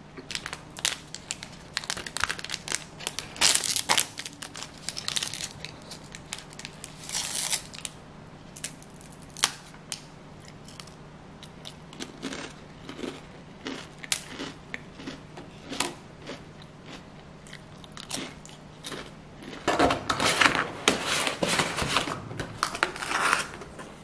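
Scattered light clicks and taps of a small wooden fork on a wooden plate while cake is eaten, over a steady low hum. About twenty seconds in, a clear plastic clamshell cake container crinkles and crackles for a few seconds as it is handled and closed.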